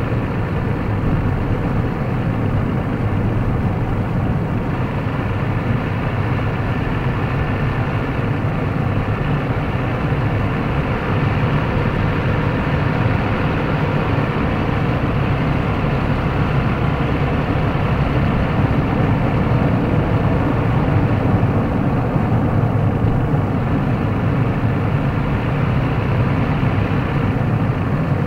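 Steady road and engine noise of a Toyota Mark X 250S being driven, heard from a camera mounted on the car, holding an even level with no change.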